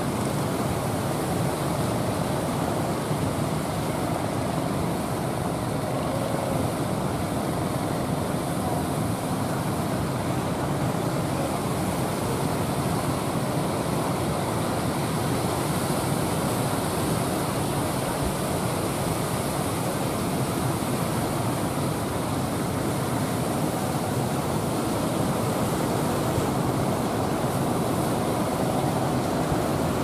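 Engines of several outrigger fishing boats running steadily, mixed with the rush of rough surf breaking.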